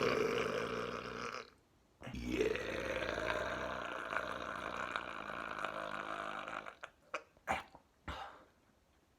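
A person burping: the tail of one burp, then after a short pause a long, drawn-out burp lasting about five seconds, followed by a few short clicks.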